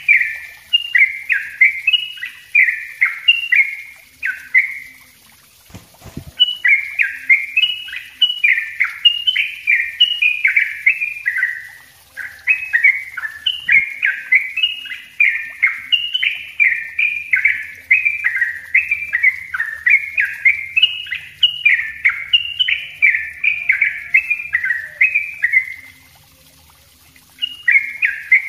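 Cucak trucuk bulbul singing its fast, dense 'ropel' song: long runs of short bubbling notes following quickly one after another. The song breaks off briefly about five seconds in and again near the end.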